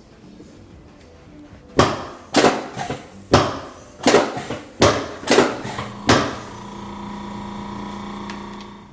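Seven sharp clacks, each ringing briefly, at irregular gaps of about half a second to a second. Then a steady electric hum that fades away near the end.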